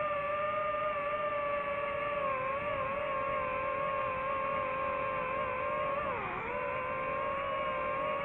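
DJI FPV drone's motors and propellers whining at a steady pitch, which dips briefly about six seconds in and then returns.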